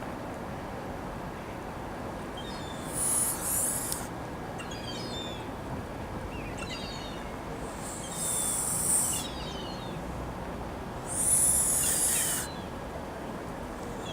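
Toulouse gander hissing in three loud, breathy bursts of about a second each, a defensive warning as he guards his mate. Short, high, falling bird calls come between the hisses.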